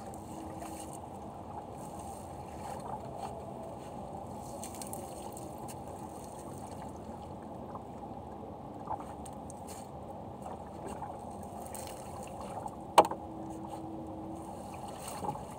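A fishing net being hauled by hand over the side of a small fibreglass boat: a steady low wash of water and wet netting with a few faint clicks, and one sharp knock about 13 seconds in.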